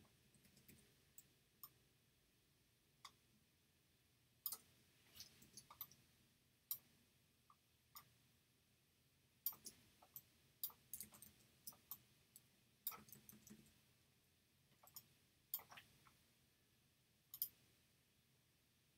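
Faint, irregular clicks of a computer mouse and keyboard, some single and some in quick little runs.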